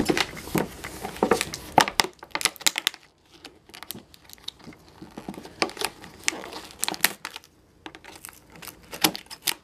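Scissors cutting into a doll's toy box, with the clear plastic window and cardboard crinkling and crackling in irregular bursts and a quieter stretch in the middle.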